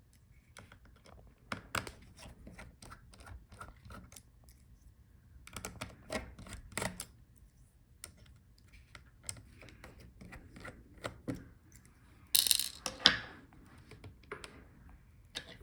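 Scattered light clicks and taps of small laptop parts being handled as the USB and audio-jack I/O board is taken out, with a louder brief scraping rustle about twelve seconds in.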